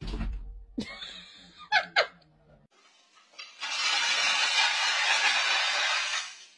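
Kitchen tap running into a sink, a steady hiss lasting about three seconds and starting past the middle. Before it come a thump, a click and two short rising squeaks.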